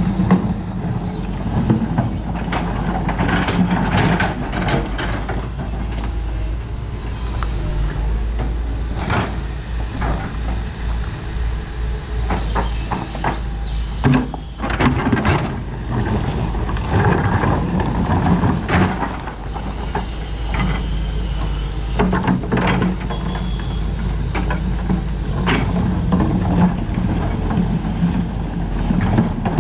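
Doosan DX225LCA crawler excavator's diesel engine running steadily, with repeated knocks and clatters from the bucket and the load of earth or rock being dumped into a dump truck.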